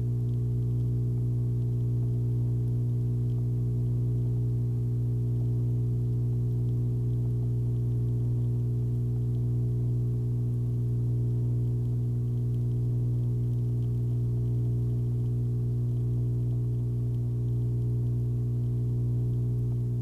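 Steady low electrical hum, a strong deep tone with a stack of evenly spaced higher tones, not changing at all.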